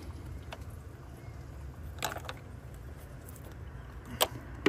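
A few short clicks and knocks of hands handling the thermostat housing and surrounding hoses in an engine bay, over a low steady hum. There is a small cluster of clicks about two seconds in, and a sharper click near the end is the loudest.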